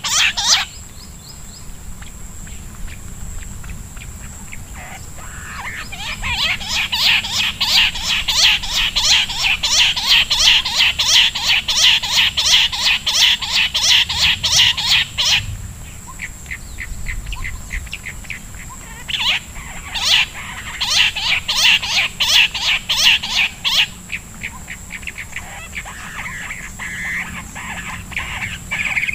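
Bush quail calling: long runs of short, high notes repeated several times a second. There are two long runs, with a pause of a few seconds between them.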